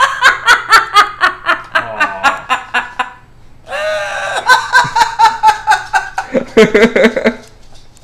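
Yellow-naped amazon parrot laughing: two long runs of rapid ha-ha-ha notes, about five a second, with a short break a little past three seconds in; the second run drops lower in pitch near its end.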